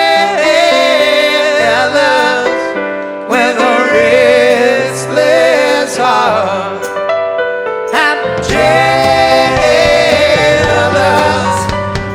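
Rock song playing, with long, wavering sung notes over a backing band; the bass fills out about eight seconds in.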